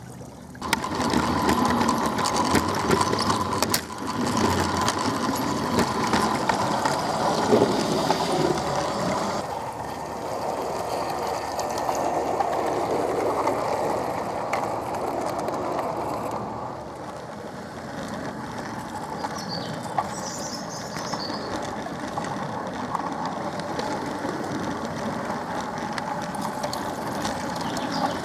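A 16mm-scale garden railway model locomotive and its train running along the track, the wheels rattling on the rails over a small motor's run. It gets quieter about nine and a half seconds in and again about sixteen seconds in.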